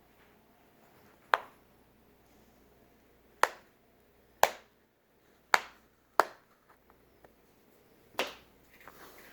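Plastic retaining clips of a Samsung tablet's back cover snapping loose as a pry tool is worked around the seam: six sharp clicks, spaced about one to two seconds apart.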